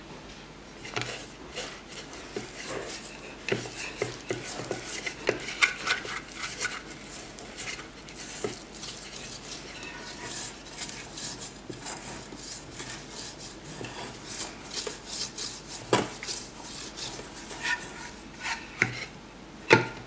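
Hands kneading butter into bread dough in a stainless steel mixing bowl: irregular rubbing and scraping against the metal, with a few sharper knocks on the bowl, the loudest near the end.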